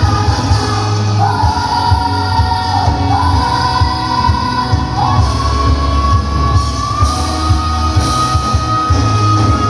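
Loud band music with a voice singing long held notes over a heavy beat; the voice steps up in pitch about five seconds in and holds one long note.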